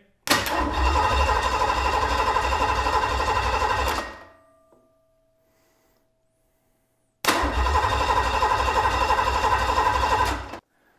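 Ford 302 small-block V8 turned over by its starter on a run stand, in two cranking bursts of about four and three and a half seconds with a pause of about three seconds between them. The crank is steady and pulsing, and the engine does not catch on either try.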